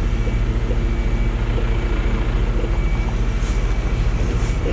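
Diesel engine of a Mercedes-Benz Actros tractor unit running at low revs, a steady low throb, while the articulated truck creeps slowly through a manoeuvre.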